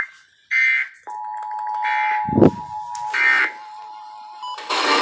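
Three short bursts of Emergency Alert System end-of-message data tones, a harsh buzzing warble, about 1.3 s apart, closing the alert message. Under them a steady two-note tone starts about a second in and fades near the end. A brief low thump sounds between the second and third bursts.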